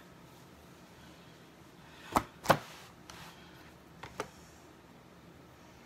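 Two sharp knocks close together about two seconds in, then a fainter pair about four seconds in, over quiet room tone.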